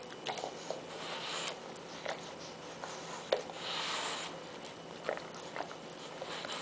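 English bulldog snuffling and mouthing a broccoli floret pressed against a wall: breathy snorts with short snaps and clicks of its teeth on the broccoli, the sharpest about halfway through.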